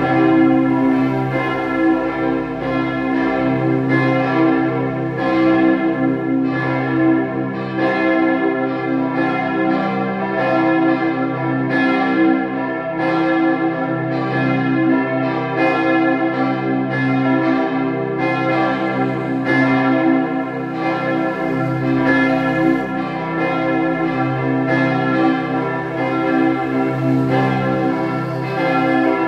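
Church bells of the Martin-Luther-Kirche ringing in a full peal, strikes following one another at uneven spacing, one to two a second, over a steady wash of humming overtones.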